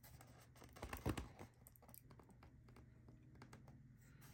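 Light taps and clicks from hands handling a die-cast model car while putting tape back on its door, a short cluster about a second in; otherwise near silence.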